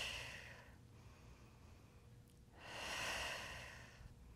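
A woman breathing audibly in a controlled exercise rhythm: one breath fading out in the first second, then another long breath starting about two and a half seconds in.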